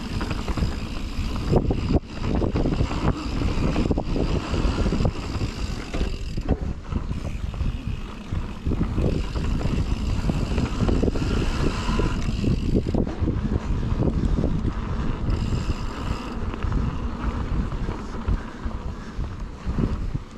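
Mountain bike ridden over a dirt trail: a steady rumble of tyres on dirt with wind buffeting the camera's microphone, broken by frequent short knocks and rattles from the bike over bumps.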